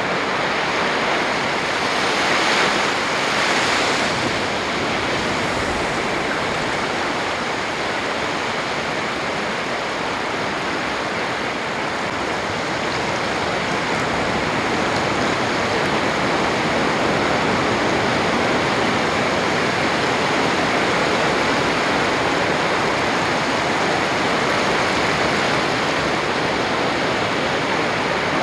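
Sea surf washing onto a sandy beach: a steady rush of breaking waves, swelling slightly about three seconds in.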